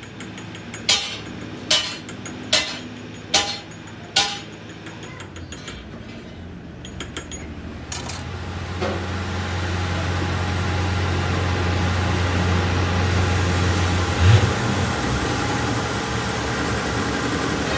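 A hammer strikes metal five times, evenly, each blow ringing briefly. A few seconds later a workshop machine starts up and runs with a steady low hum and hiss, with one sharp knock near the end.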